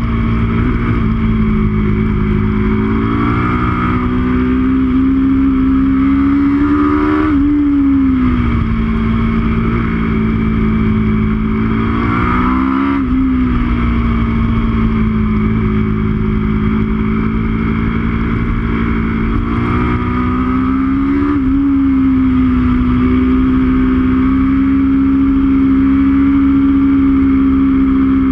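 Aprilia RSV4 sportbike's V4 engine heard from on board, held at high revs through sweeping corners, its pitch climbing and then falling away three times as the rider works the throttle and gears, over a steady rush of wind.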